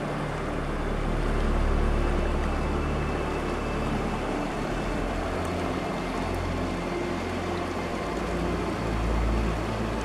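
Wind rushing and buffeting over the microphone as a gravel bike rolls down a mountain descent, a steady noise with heavy low rumble.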